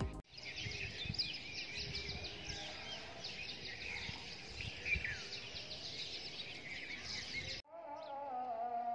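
Many small birds chirping over one another in a dense, busy chorus. Near the end the chirping stops abruptly, and a long held pitched sound begins that wavers at first and then holds steady.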